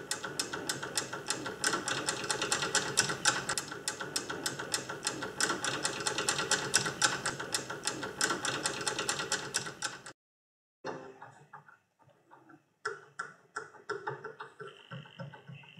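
Steel hex nut clicking and rattling on a bolt's threads and its plate as a finger wiggles it round, about five quick clicks a second. The clicking stops abruptly about ten seconds in, then returns more sparsely as mechanical precession works the nut tight.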